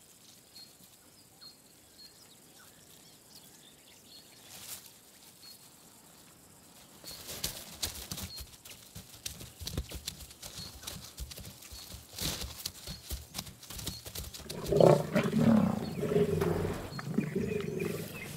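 Lionesses growling loudly while feeding on a fresh kill, starting about fifteen seconds in. Before that comes a run of crackles and knocks from about seven seconds in. Over a faint background, small birds chirp repeatedly.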